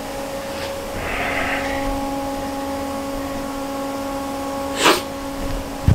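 Steady mechanical hum with several fixed tones, with a single short, sharp knock about five seconds in.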